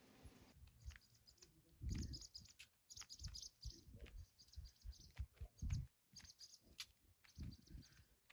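Faint chirping of small birds, in short high clusters, over soft low thuds of footsteps on the pavement about once a second.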